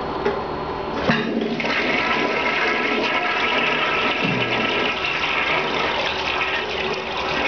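Mid-1970s Mansfield 210 toilet flushing: a sharp click about a second in, then a steady rush of water swirling down the bowl.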